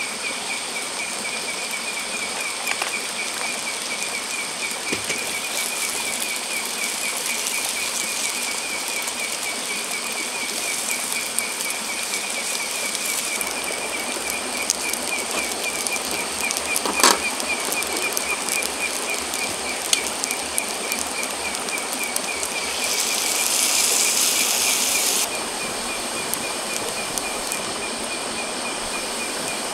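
Night insects trilling steadily, a rapid pulsing chirp with a thin, higher steady whine above it, over the faint crackle of a campfire. A single sharp click comes about halfway through, and a louder hiss lasts about two seconds near the end.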